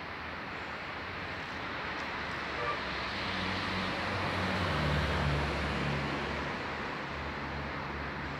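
Continuous road traffic noise from a highway, with a deeper engine hum that swells about halfway through as a vehicle passes close by, then settles back.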